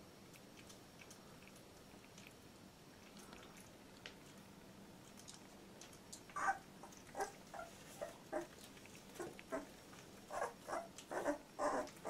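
A two-week-old Labrador retriever puppy whimpering: after a quiet first half with a few faint clicks, a run of short squeaky cries comes about two a second.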